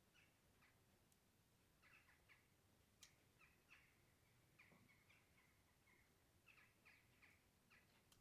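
Faint bird chirps, short calls repeated in small clusters every second or so, over a very quiet background hiss.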